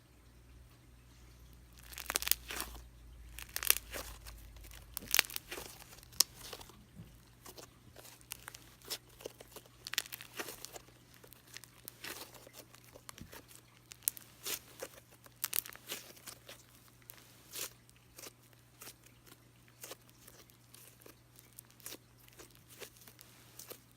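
Thick cream-cheese-textured slime being worked by hand, giving sharp crackling pops and tearing sounds, a loud cluster about two seconds in, then lighter scattered crackles.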